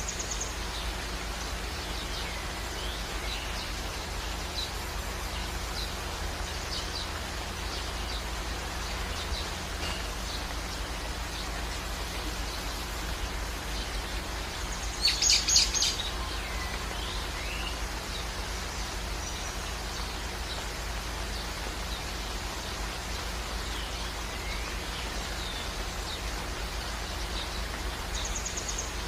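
Steady outdoor background noise with scattered faint bird chirps, and a short, louder rapid burst of sound about halfway through.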